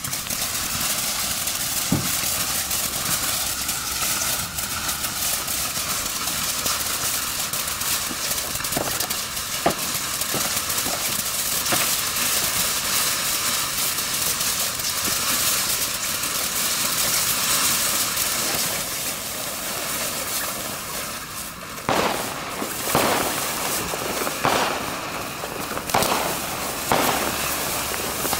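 Fox Fireworks 'Voltage' fountain spraying with a steady loud hiss, with a few sharp pops. Over the last several seconds a run of louder cracks comes over the hiss as its effects fire out.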